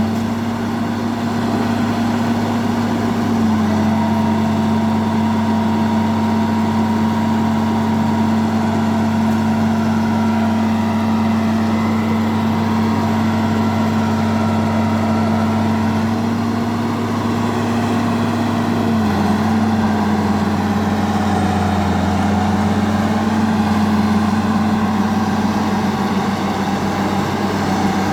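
Bulldozer's diesel engine running steadily, its pitch dipping slightly a few seconds in and again about two-thirds of the way through.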